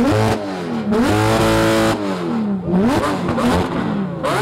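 High-performance sports car engines being free-revved hard while parked. The pitch climbs quickly several times, is held near the top for about a second once, and falls away between blips.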